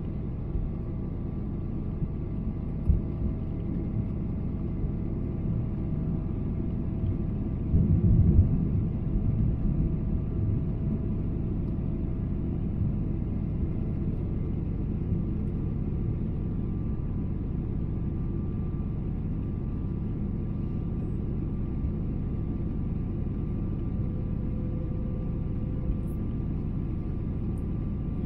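Cabin noise of a Boeing 777-300ER on approach: the steady low rumble of its GE90-115B engines and the air rushing past the fuselage, with faint steady tones above it. About eight seconds in the rumble briefly swells louder.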